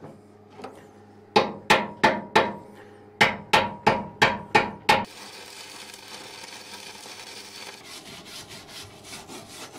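About nine sharp metallic knocks on the steel plate, then a stick (MMA) arc welder crackling steadily for about four seconds as the plate is welded to the steel deck, breaking into short crackles near the end.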